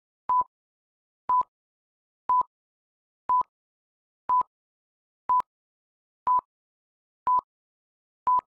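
Film countdown leader beeps: a short, single-pitched beep once a second, nine in a row, all alike, with silence between them.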